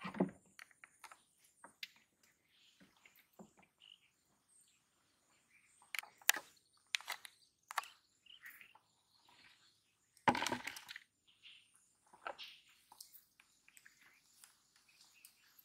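Scattered rustles and small clicks of hands working a fishing rod, line and float in tall grass, with a louder rustle about ten seconds in. Faint bird chirps behind.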